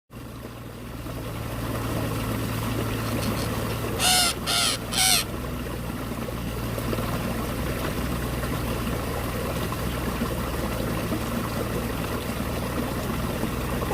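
A bird giving three short calls in quick succession, each arching in pitch, over a steady background hiss.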